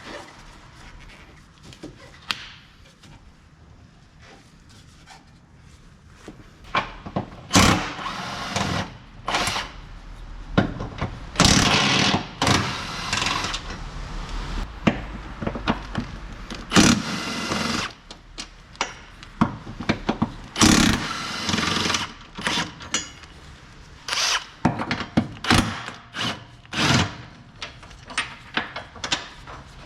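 Tool work on a car: a string of sharp knocks and clatters, with a few longer noisy bursts lasting a second or two.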